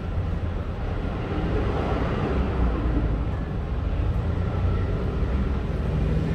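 City street traffic noise: a steady low rumble of passing vehicles that grows a little louder about a second and a half in.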